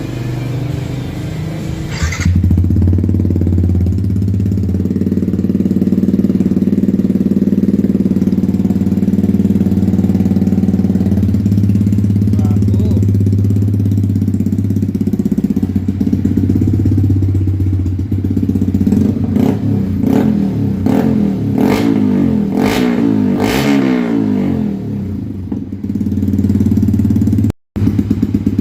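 Yamaha XSR155's single-cylinder engine running through an Akrapovic full exhaust system, idling steadily at first. In the second half it gives a run of six or seven quick throttle blips, each rising and falling in pitch, then settles back to idle.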